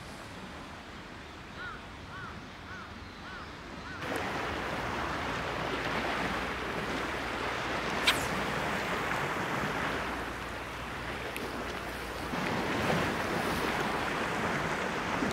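Choppy sea water lapping against a concrete harbour seawall, with wind and wind buffeting on the microphone; it gets louder about four seconds in. A single sharp click sounds about eight seconds in.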